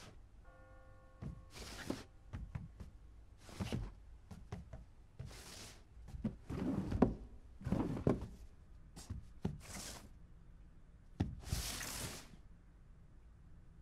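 Cartoon sound effects of a wooden board on the move: a string of short swishing scrapes, a few dull thuds and knocks, and small clicks in between. A brief ringing tone sounds near the start.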